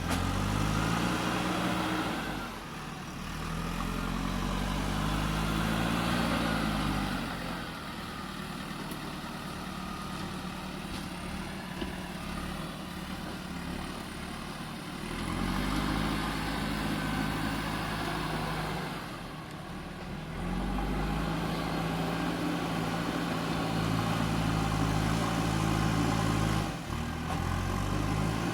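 JCB 3DX Super backhoe loader's diesel engine revving up under load and easing back several times while loading soil. A quieter stretch at lower revs comes midway.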